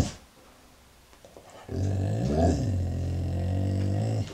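A dog making a long, low, drawn-out "talking" vocalization: about two seconds in it starts, rises and falls in pitch, then holds steady for nearly two seconds before stopping. The end of a shorter one is heard at the very start. The owner takes it as the dog asking for its food.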